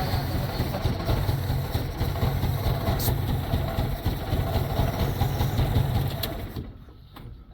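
1983 Chevrolet Chevette's four-cylinder engine running roughly with a misfire after a hard start, then dying out about six and a half seconds in as it stalls.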